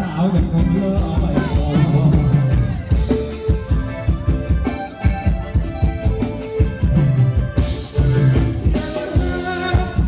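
Live band playing upbeat Thai ramwong dance music: a steady drum-kit beat under held bass and melody notes, with a singer.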